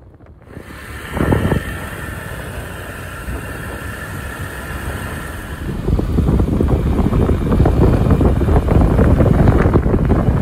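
Motorcycle on the move: engine and road noise with wind buffeting the microphone, and a thump about a second in. The rumble grows louder and rougher from about six seconds in.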